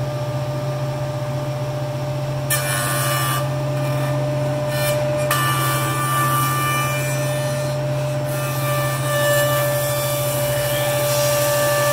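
Powermatic 54HH 6-inch jointer running quietly, its helical cutterhead planing the edge of a board fed across it. A steady motor hum and whine run throughout, and the rasping cut of the insert knives comes in about two and a half seconds in, rising and falling in waves as the board passes over the head.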